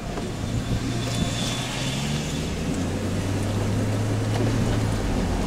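Car engine and road noise heard from inside the cabin as the car drives along, a low steady hum whose pitch climbs over the first couple of seconds as it speeds up, then holds.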